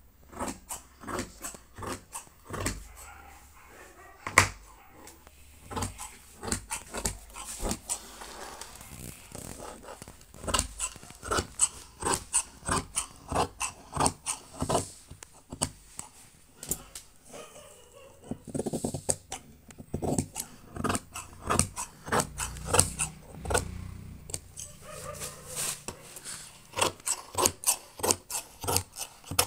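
Scissors snipping through cloth: a long run of sharp, irregular snips and blade clicks, with one louder click about four seconds in.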